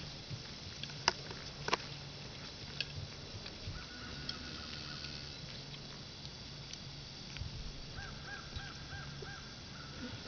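A bird calling: a run of about five short, quickly repeated calls about eight seconds in, with a fainter call earlier. Two sharp clicks come a little over a second in, over a steady low outdoor background.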